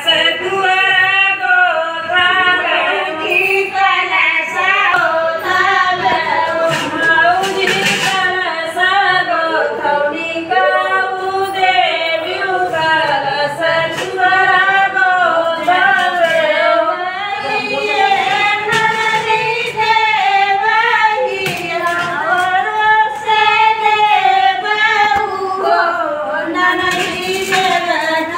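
Women's voices singing a devotional song together, in long wavering melodic lines.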